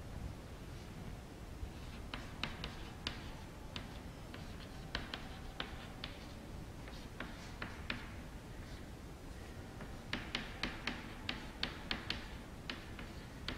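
Chalk tapping and scratching on a chalkboard as words are written: short, sharp, irregular clicks that come in clusters, thickest near the end.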